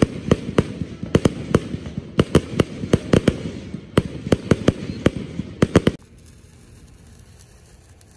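Aerial fireworks bursting overhead: a fast, irregular run of sharp cracks and pops, about three or four a second, over a low rumble. About six seconds in the sound cuts off suddenly to a faint, quiet background.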